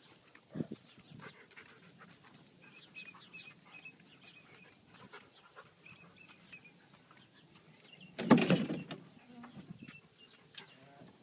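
Small birds chirping, short high calls repeated throughout, over faint footsteps and handling. Just after eight seconds a loud clatter about a second long as the Volkswagen New Beetle's door is opened and someone climbs into the driver's seat.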